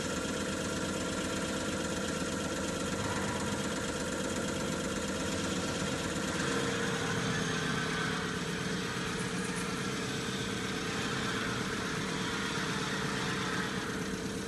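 CR708 common rail test bench running a Bosch common rail injector test: the motor-driven high-pressure pump runs steadily while the injector ticks rapidly as it is pulsed. About six and a half seconds in the sound shifts, with a new steady whine, as the test moves on to its next step.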